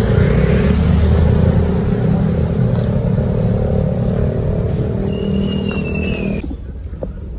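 Motor vehicle engine running close by, steady and loud, with a brief high falling whine near the end; the sound cuts off abruptly about six and a half seconds in.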